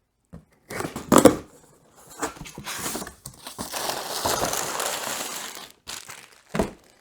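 Packaging being handled: irregular crinkling and tearing rustle, with a sharp knock about a second in and another near the end.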